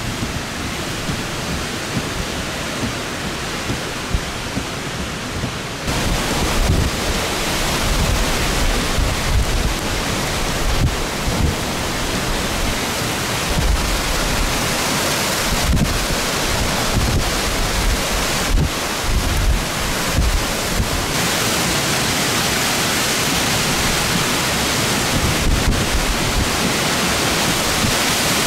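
Hurricane wind and driving rain, with gusts rumbling on the microphone. The noise steps up louder about six seconds in.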